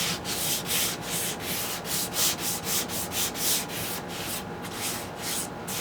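Sandpaper on a sanding block rubbed back and forth by hand over the dresser's wood, about three hissing strokes a second, sanding the dried spackle patches on the veneer flat.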